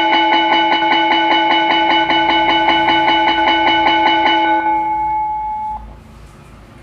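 Electric school bell ringing with rapid, even clapper strikes, sounding the end-of-day bell. It cuts off about four and a half seconds in, and its tone rings on and fades about a second later.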